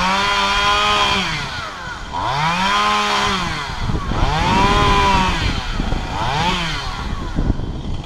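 Chainsaw revving up and dropping back four times as it cuts into the trunk, its pitch rising and falling with each cut.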